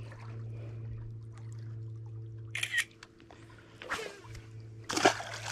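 Short splashes and sloshes of shallow lake water, the loudest about five seconds in, as a freshly caught bass is lowered and let go into the water. A steady low hum runs underneath and drops out for about a second after three seconds in.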